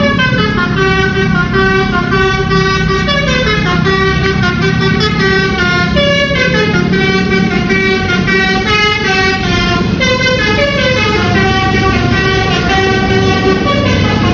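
Bus 'basuri' telolet horn playing a continuous melody of held notes that step up and down in pitch, loud and unbroken.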